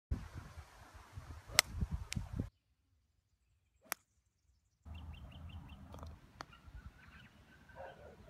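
Golf clubs striking the ball. A sharp crack from a driver hitting a teed ball comes about a second and a half in, with wind rumbling on the microphone. Another drive clicks at about four seconds, and a lighter strike on the green follows at about six seconds, with birds chirping.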